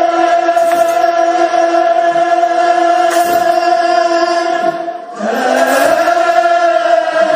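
Choir of Ethiopian Orthodox debteras singing a wereb chant together, holding one long note for about five seconds, then a short break and a new held note rising into place.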